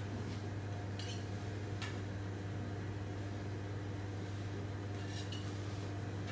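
A steady low mechanical hum of kitchen equipment, with a few faint clicks and taps of a knife on a plastic cutting board and plate, about a second in, just before two seconds and again near five seconds.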